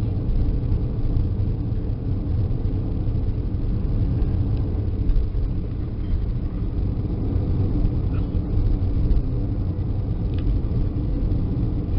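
Steady low rumble of a Boeing 737-400 heard from inside the passenger cabin: engine and airframe noise of the moving aircraft.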